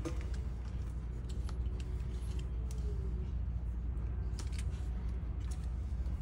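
Scissors snipping a few times, cutting a sheet of thermal pad to size, over a steady low hum.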